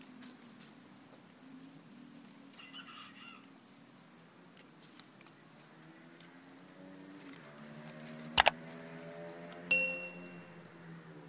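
A sharp click followed about a second later by a short metallic ding that rings and fades, from stiff bonsai training wire being bent and handled around the tree's branches. A low, steady drone runs underneath and rises in pitch in the second half, with a brief chirp about three seconds in.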